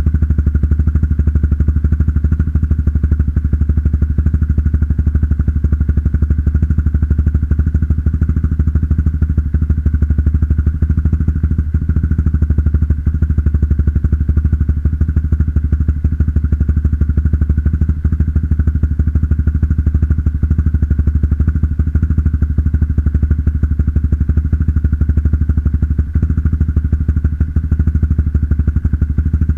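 Motorcycle engine idling steadily after a cold start, through an aftermarket NOB1 Neo SS exhaust with a dB killer (booster) fitted, with a deep, even, fast exhaust pulse.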